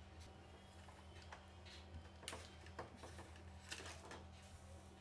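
Near silence: a low steady hum with a few faint clicks and taps from small parts and screws being handled, most of them between about two and four seconds in.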